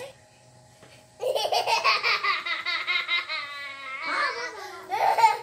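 Laughter: a long run of quick rhythmic 'ha-ha' pulses starting about a second in, then two shorter bursts near the end.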